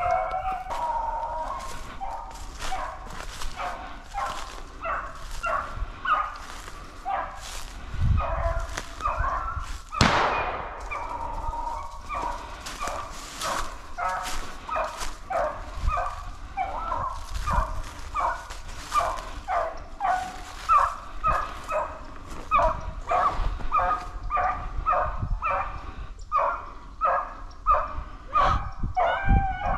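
A pack of beagles baying in full cry on a running rabbit, many dogs' voices overlapping in a continuous run of short yelps and bays. A single short, louder noise cuts across about ten seconds in.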